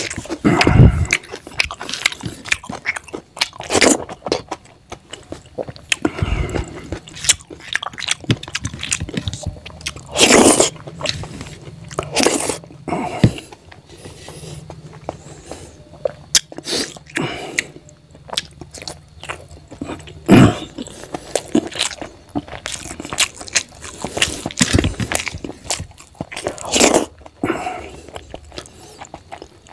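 Close-miked chewing and biting of a person eating rice with curry and fried pork by hand: irregular wet mouth sounds, with a few louder, sharper ones.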